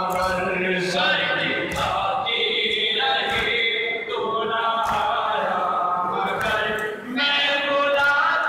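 Many men chanting a noha together in a large hall, the voices rising and falling in phrases with short breaks. Sharp slaps cut through at irregular intervals, typical of matam (chest-beating) keeping time with the lament.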